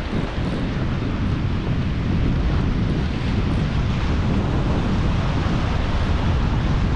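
Wind buffeting the microphone in a steady, loud rumble, over the wash of waves breaking against the rock breakwall.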